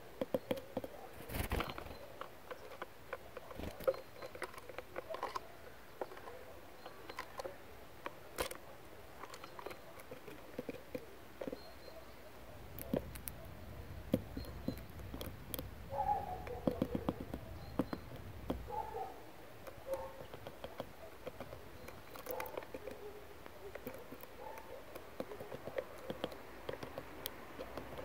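Great tit pecking and hammering at a seed-studded fat ring: irregular small taps and cracks, sometimes in quick runs.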